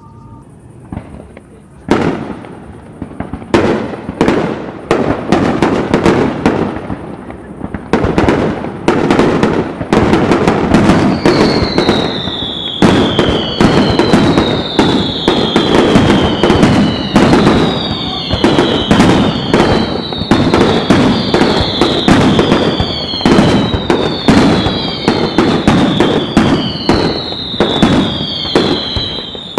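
Fireworks display: scattered bangs about two seconds in build into a dense, continuous barrage of booms and crackles. From partway through, a falling whistle repeats about every second and a half over the bangs.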